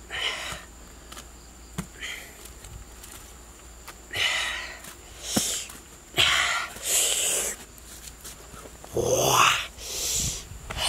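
A man's wet mouth sounds while eating honeycomb: a string of short slurps and sucking breaths, about half a second each, with a few light clicks between them. The loudest comes near the end with a voiced, bending 'mmm'-like sound.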